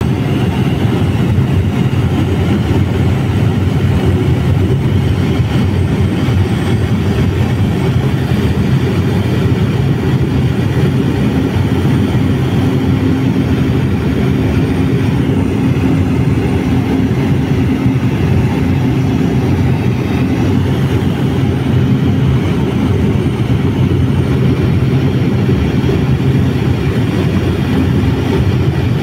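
Steady, loud drone of an aircraft's engine heard from inside the cabin, recorded on a phone while flying low over the forest. It is a low, even hum with no break or change.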